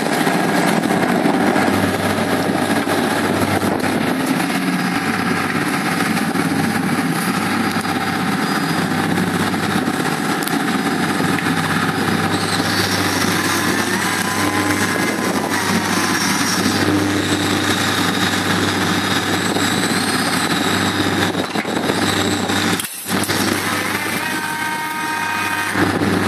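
Steady engine and machinery drone under a wash of wind and water noise as the dinghy is hoisted on its lifting hook. A wavering whine comes in for a while in the middle, and the sound drops out for an instant near the end.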